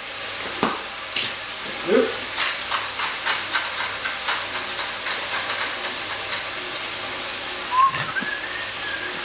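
Food sizzling as it fries in an oiled pan on the stove, a steady hiss with many small crackles and a few soft knocks. Near the end there is a short rising squeak.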